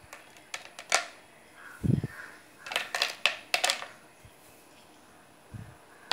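Chopped almonds and peanuts dropped by hand into a plastic container, landing as scattered light clicks, with two dull low thumps.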